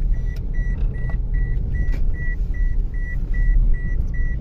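Car running, heard as a steady low rumble from inside, with a short high-pitched warning beep repeating evenly about two and a half times a second.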